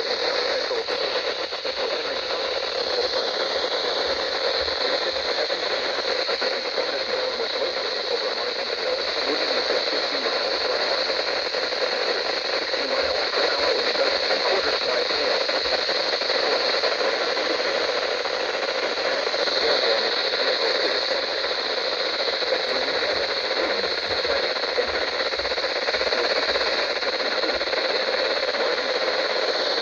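Steady radio static: an even hiss from a radio receiver with no broadcast coming through.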